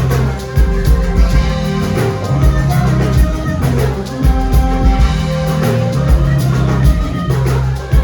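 Live band playing an upbeat Ghanaian gospel highlife song, without vocals: a steady drum-kit beat over a pulsing bass line, with held notes from other instruments.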